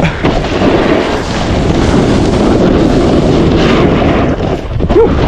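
Loud, continuous wind buffeting on the microphone of a snowboarder riding fast down a groomed piste, mixed with the hiss and scrape of the snowboard carving over the snow.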